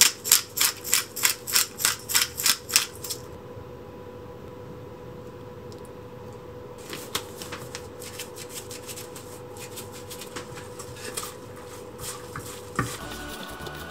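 A glass salt-and-pepper shaker is shaken over a steel mixing bowl about a dozen times, in quick sharp rattles about four a second for three seconds. Later come faint, irregular soft clicks and rustles as a gloved hand mixes the chive and ground-meat filling in the bowl.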